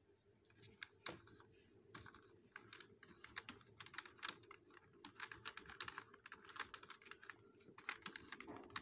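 Computer keyboard keys being typed, a quick, irregular run of light clicks. A steady high-pitched trill runs behind them.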